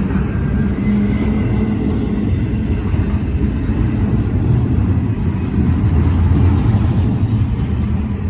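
Intermodal freight train rolling slowly past: a steady, loud low rumble with a low hum underneath.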